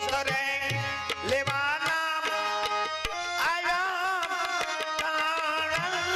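Devotional bhajan music: a male voice singing a melismatic, wavering line over a harmonium's sustained chords, with small brass hand cymbals (manjira) ticking out the rhythm and drum beats below.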